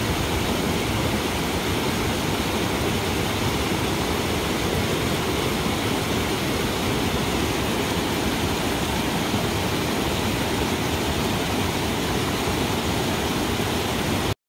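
Steady rush of a waterfall and creek, an even hiss-like roar of falling and running water that cuts off abruptly near the end.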